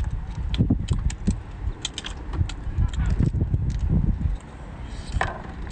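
Cooked brown crab being pulled apart by hand: the shell cracks and crackles in a run of sharp, irregular clicks over a steady low rumble.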